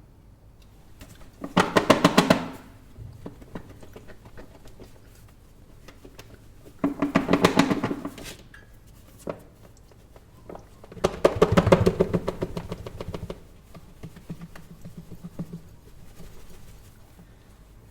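Lidded container holding a phone and pieces of chocolate being shaken, its contents rattling in quick rapid strokes. Three shakes of a second or two each, about five seconds apart.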